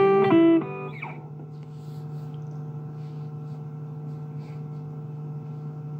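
A quick run of plucked guitar notes that stops about half a second in, followed by a steady low hum.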